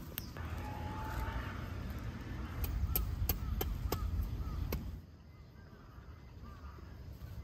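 Outdoor ambience: a steady low rumble with a run of sharp clicks and faint short bird-like chirps, dropping quieter about five seconds in.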